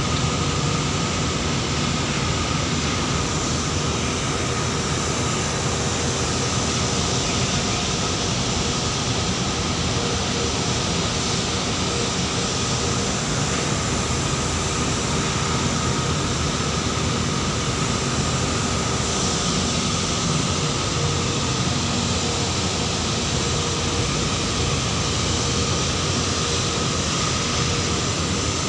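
A workboat's engine running steadily under way: a constant drone with a faint steady whine over it and no change in speed.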